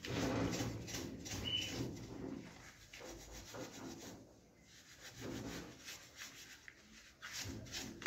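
Steel wool (Bombril) scrubbing the greasy metal top of a gas stove in rasping back-and-forth strokes, working off grease softened by an ammonia degreaser. The scrubbing is strongest at the start, eases off in the middle, and picks up again near the end.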